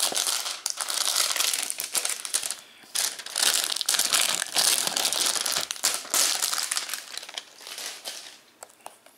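Clear plastic shrink-wrap being torn and peeled off a Blu-ray case, crinkling and crackling in loud spells with a short break about three seconds in, tapering off near the end.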